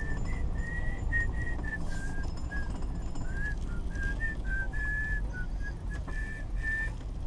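A person whistling a tune in short notes that step up and down in pitch, over the steady low hum of a four-wheel-drive truck's engine and tyres heard inside the cab.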